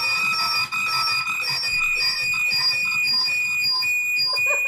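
Audio feedback howl in a CleanFeed and Zoom call: loud, steady high ringing tones, with a higher squeal pulsing on and off about twice a second. It is a feedback loop through the connection, which the players trace to Zoom's audio being left unmuted while CleanFeed runs, without earbuds on both ends.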